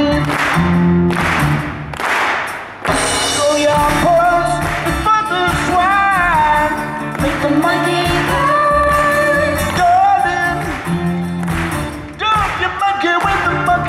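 A live pop-rock band performing, with sung vocals held in long notes that slide up and down over the band's backing.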